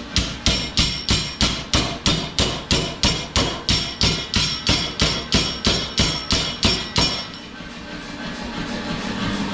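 Mechanical power hammer striking hot steel in a fast even rhythm of about three blows a second. The blows stop about seven seconds in, leaving the hammer's motor running with a steady hum.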